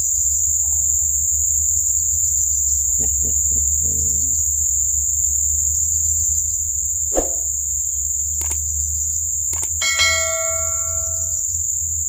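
Steady, high-pitched drone of forest insects. Late on come a few sharp clicks, then a short bell-like ding that rings out for about a second and a half, from a subscribe-button animation.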